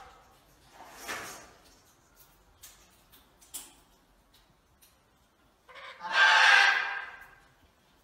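Blue-headed macaw (Coulon's macaw) calling: a short, fainter call about a second in, then a loud, harsh call lasting about a second near the end, with a few faint clicks between.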